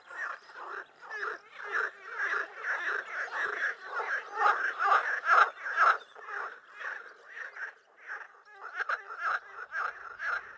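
Frogs croaking in a chorus of quick, rattling calls, loudest in the middle.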